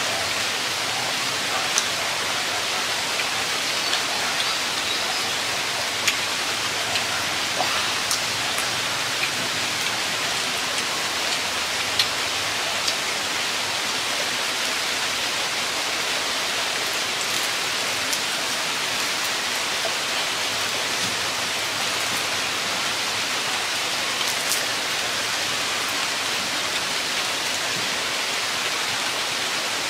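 A steady, even hiss with no pitch, unchanging throughout, with a few faint clicks on top.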